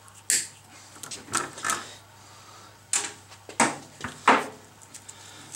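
Flexible steel armored cable and pliers clinking and rattling as they are handled, a series of sharp metallic clicks and clatters, the loudest a little under three seconds in and twice more past the middle.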